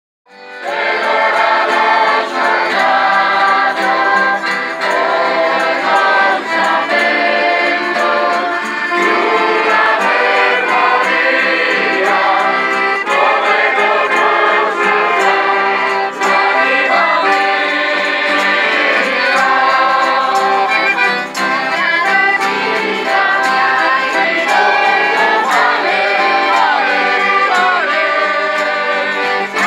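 A group of voices singing together in chorus, accompanied by acoustic guitars and an accordion. The music starts about half a second in.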